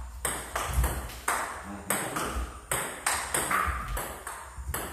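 Table tennis rally: the celluloid ball clicking sharply off the bats and the table in quick alternation, a pair of clicks about every half second, each with a brief ring in the hall.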